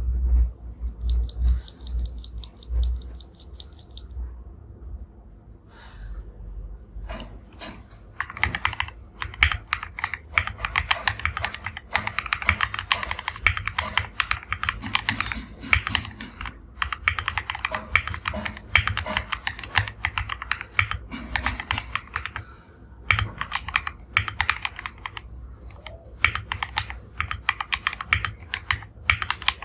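Typing on an RK61 mechanical keyboard with Jerrzi Rouge linear switches in a custom aluminium case and plate: a fast, dense run of keystroke clacks with brief pauses. The clacks start about seven seconds in, after a few seconds of low rumble.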